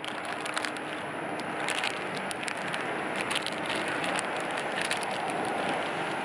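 Resealable plastic bag of soft-plastic fishing worms crinkling as it is handled and opened, a run of quick irregular crackles over a steady background hiss.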